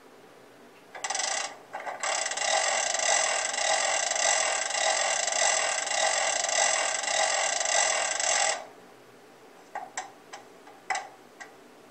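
LokSound 5 decoder's hand-brake sound effect for an E9 diesel locomotive, played through the HO-scale model's small speaker. It is a loud mechanical sound lasting about seven seconds, with a short break about a second in, followed by a few sharp clicks.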